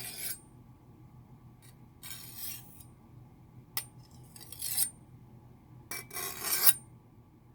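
Knife-sharpening sound effect: metal drawn slowly along metal in four separate strokes about two seconds apart, each ending in a brief high ring, the last the loudest.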